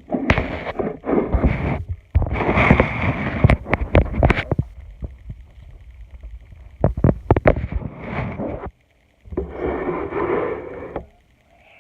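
Loud handling noise close to the microphone: rustling, bumps and knocks in several bursts a few seconds long, separated by short pauses.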